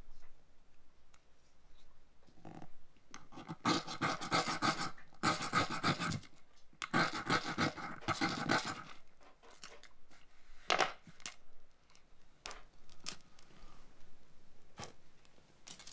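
Fire steel scraped hard with its striker: several long scrapes about four to nine seconds in, throwing sparks that light a nest of birch bark fibres. A few light clicks follow.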